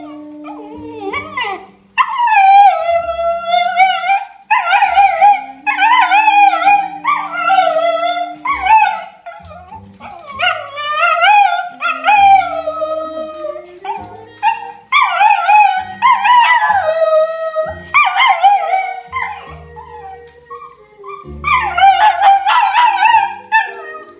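A cocker spaniel howling along to a jazz recording, giving a long run of high, wavering howls about a second each with short breaks, over the lower held notes of the music.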